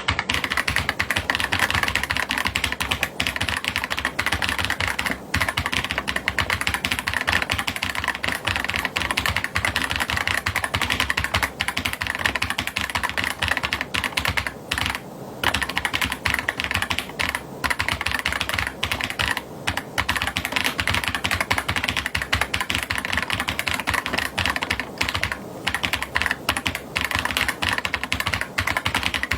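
Fast continuous typing on an AJAZZ AK820 Pro mechanical keyboard with Sea Salt linear switches and PBT keycaps in a gasket-mount case, a dense run of key clicks broken by a few short pauses.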